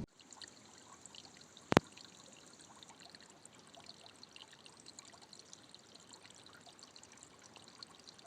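Faint trickling water, a light patter of small drips, with one sharp click about two seconds in.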